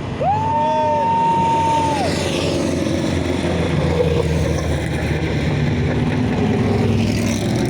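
A rally car's engine running, its revs changing. Near the start a steady high tone sounds once for about two seconds.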